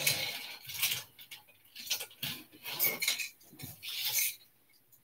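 Lego toys and loose plastic pieces being shifted and rummaged through by hand: light clattering and rustling in irregular bursts.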